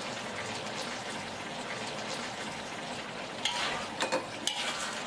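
Beef and potato braise sizzling in a wok over high heat as the sauce reduces and thickens with a thin starch slurry. About three and a half seconds in, a ladle knocks and scrapes against the wok a few times as the stew is turned.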